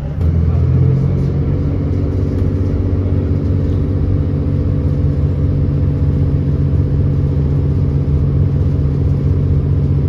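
A diesel commuter train's engine running steadily at a station stop: a low, even drone that comes in sharply at the start and is loudest in the first second.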